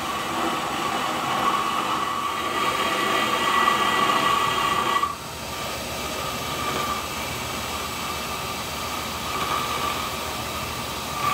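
Grizzly G0752Z metal lathe running at about 870 RPM with a turning tool cutting a metal shaft: a steady high whine over the machine noise. It is louder in the first few seconds, drops suddenly about five seconds in, and then goes on more quietly.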